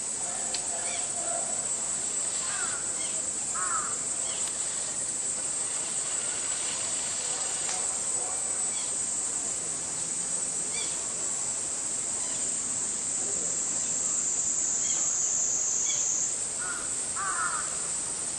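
Cicadas buzzing steadily at a high pitch. The pitch sags slightly late on and jumps back up near the end. Short bird calls come twice near the start and twice near the end.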